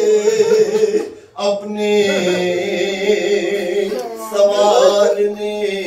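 A man chanting an unaccompanied mourning elegy into a microphone, in long held, wavering notes, with a short pause for breath about a second in.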